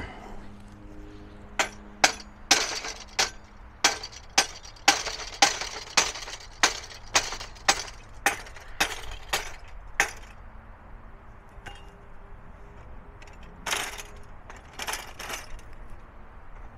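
Sharp, ringing knocks, about two a second, for some eight seconds, then a few more near the end.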